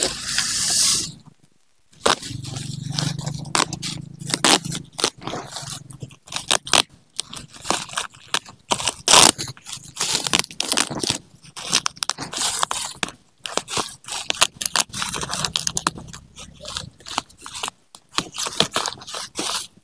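Black plastic wrapping on a parcel crinkling and crackling as it is torn and pulled off by hand, in irregular bursts, with a brief tearing hiss near the start.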